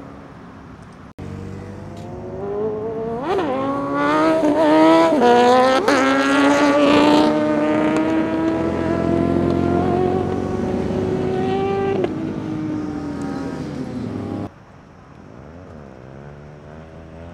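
Sport motorcycle engine accelerating hard: the pitch climbs and drops at several quick upshifts a few seconds in, then holds a high, slowly rising note. It cuts off suddenly near the end, leaving a quieter engine sound.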